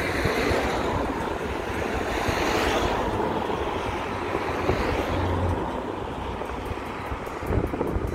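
A passing train: a steady noise that builds to its loudest about two to three seconds in and then slowly fades.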